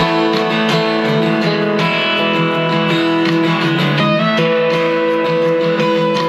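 Music led by guitar, with steady strummed and plucked chords.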